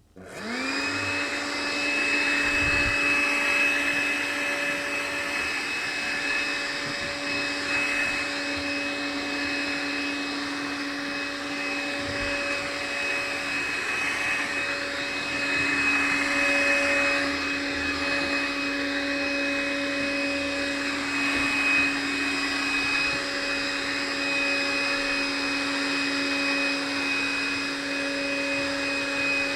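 Vacuum cleaner switched on, its motor spinning up to speed within about a second, then running steadily with an even whine.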